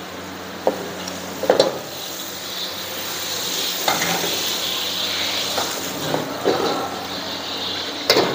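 Food sizzling as it fries in a hot pan, with several sharp clanks of a metal utensil against the pan. The sizzle swells after about two seconds.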